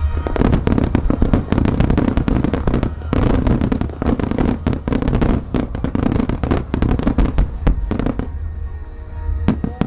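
A barrage of aerial firework shells bursting in quick succession, a dense run of sharp bangs that eases briefly about three seconds in and again near the end.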